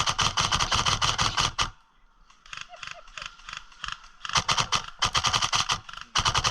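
Airsoft rifle firing rapid full-auto bursts, close by, a fast train of sharp clicks. The first burst stops about two seconds in; fainter shots follow, then loud bursts start again about four seconds in and once more near the end.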